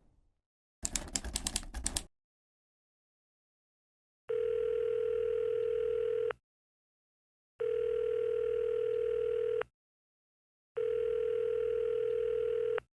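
A phone call ringing out: three rings of the ringback tone heard by the caller, each a steady tone about two seconds long with about a second between them. Just before the rings, a rapid clatter of clicks lasts about a second.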